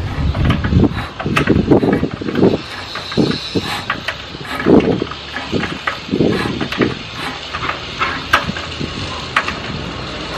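A ratchet wrench clicking and metal tool knocks on a diesel engine, coming in irregular bursts with sharp clicks, as the crankshaft is turned over by hand.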